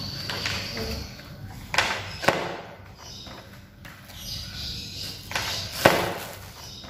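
Papers and packaging being handled: a couple of sharp knocks, then a longer rustle about five seconds in.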